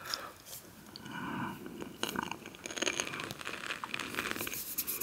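Close-miked chewing of a crunchy salty snack: irregular crisp crunches and bites between quieter mouth sounds.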